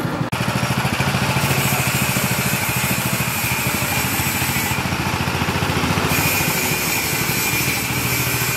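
Small petrol engine of a homemade three-wheeler running steadily under load as it carries riders, a fast, even pulsing beat. The sound cuts in after a brief gap right at the start.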